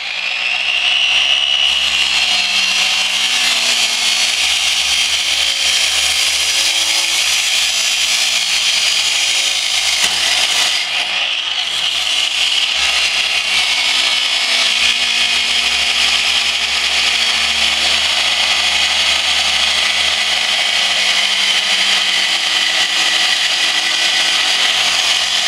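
Abrasive chop saw cutting through steel square tube and angle, its cut-off wheel grinding steadily with a high whine.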